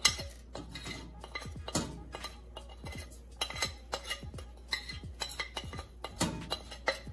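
Metal spoon scraping and tapping on a ceramic plate, an irregular run of sharp clinks and short scrapes as ground black pepper is knocked off into a pot.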